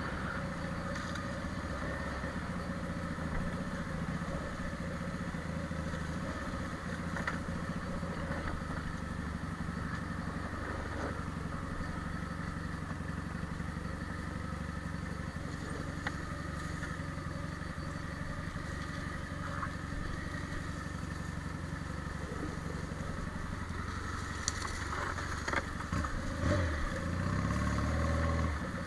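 Quad bike engine running at a steady, low speed, then picking up in pitch and loudness near the end.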